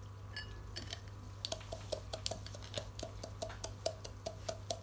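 Water dripping into an aquarium tank in a quick, regular patter of small plops, about four a second, starting about a second and a half in. A steady low hum runs underneath.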